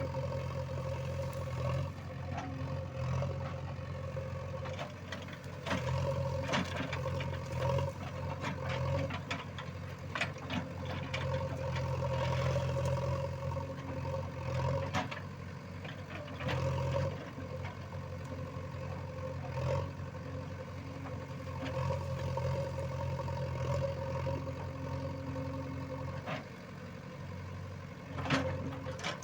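JCB 3DX backhoe loader's diesel engine running, its note rising and easing again and again as it takes load, with scattered sharp knocks and clanks from the working machine.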